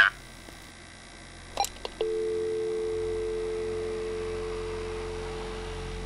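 A telephone line clicks as the call ends, then a steady two-tone dial tone starts about two seconds in and slowly fades.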